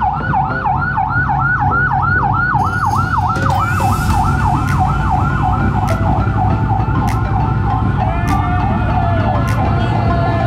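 A siren in a fast yelp, its pitch sweeping up and down about three to four times a second, over the engines of a line of motorcycles riding past. A second, steadier tone joins near the end.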